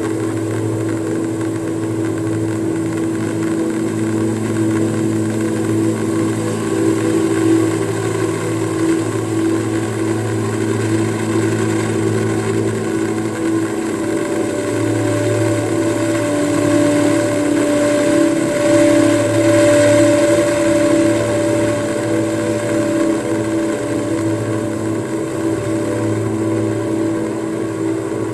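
Ambient drone music from live-looped electric guitars and electronics: several sustained tones layered into a steady hum, with a higher tone entering about halfway through and the whole swelling slightly after it.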